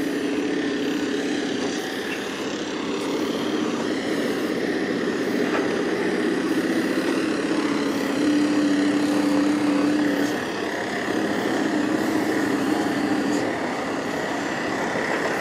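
Heavy diesel construction machinery running steadily, a continuous engine drone whose pitch shifts slightly now and then.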